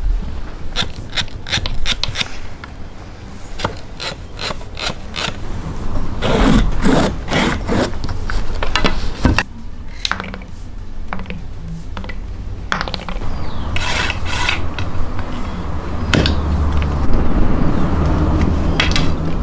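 Close-miked irregular wooden clicks, knocks and rubbing from hand weaving and spinning tools: the wooden parts of a backstrap loom and a drop spindle twirling on a hard floor. The scraping, rubbing noise grows steadier in the second half.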